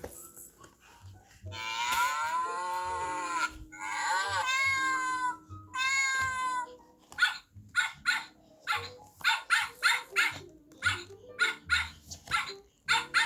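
Recorded cat meows played back: three long, drawn-out meows that bend in pitch, then a quick run of short mews about two a second, over light background music.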